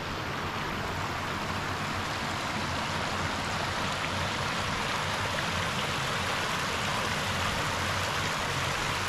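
Shallow, clear river rushing over rocks and spilling off the edge of a submerged concrete low-water crossing: a steady watery rush that grows a little louder in the first few seconds.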